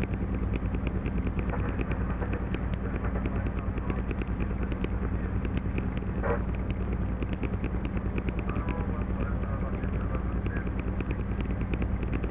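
Class 731 diesel locomotive's engine running steadily, heard inside the driver's cab, with a fast, even ticking over its low drone.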